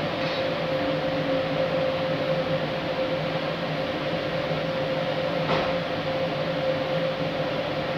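Electric locomotive humming steadily: one constant tone over an even background hiss. A single short click comes about five and a half seconds in.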